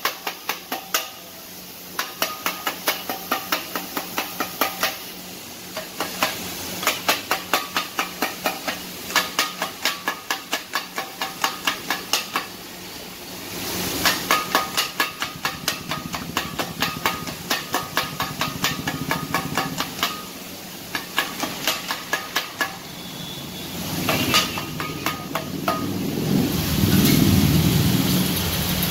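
Two metal spatulas chopping kothu parotta on an iron griddle: a rhythmic metallic clatter of about four ringing strikes a second, in runs with short pauses, over a steady hiss. Near the end a louder rushing noise rises.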